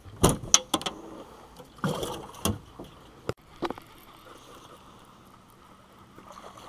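A quick series of sharp knocks and clunks from fishing gear being handled in a small boat, followed by a stretch of faint steady background noise.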